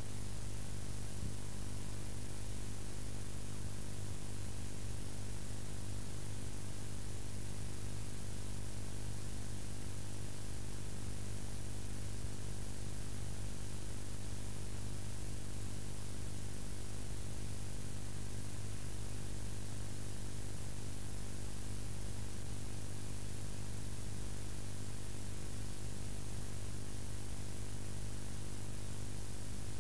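Steady electrical hum with a constant hiss, unchanging throughout and with no other sound on top.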